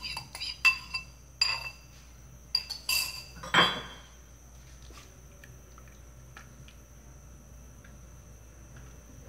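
Dishes and kitchen utensils clinking and knocking against a cooking pot: a run of sharp ringing clinks over the first four seconds, ending in one longer clatter, then only a few faint taps.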